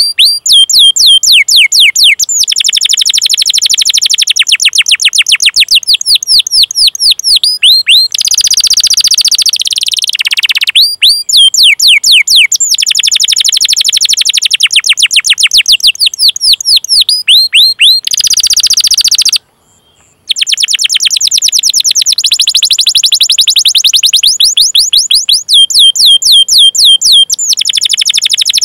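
Domestic canary singing long series of rapid, repeated high chirps, each falling in pitch ('cuit cuit'), run together into rolling trills. There is a brief silent break about two-thirds of the way through.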